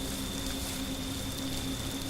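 Steady hiss like rain, with a constant low hum and a faint high whine underneath.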